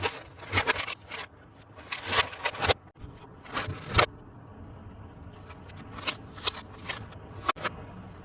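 Plastic toy and packaging being handled for an unboxing: irregular bursts of scraping and crinkling, with a quieter stretch from about four to six seconds in.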